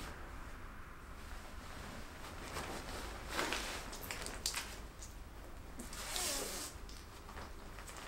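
A duvet in its cotton cover being pulled and handled, with the fabric rustling and swishing and a couple of sharp clicks in the middle.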